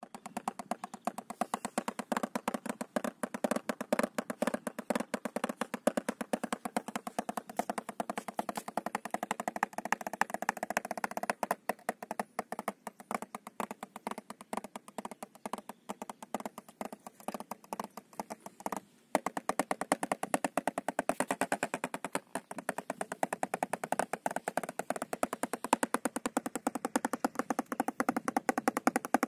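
Wooden drumsticks striking a rubber drum practice pad in a steady stream of fast strokes, with a brief break about nineteen seconds in.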